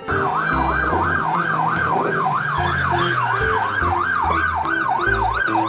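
Police car siren in a fast yelp, its pitch sweeping rapidly up and down about three times a second without a break.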